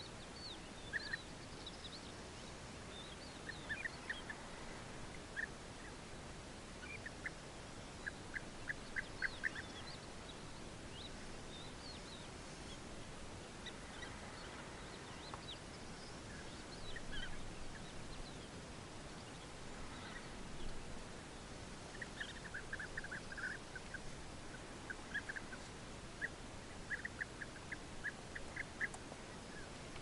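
European bee-eaters calling: short, liquid notes in quick runs of several at a time, repeated every few seconds, with thinner higher notes scattered between them.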